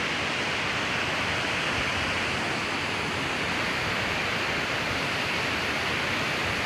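A waterfall's steady rush of falling water, an even, unbroken roar of noise.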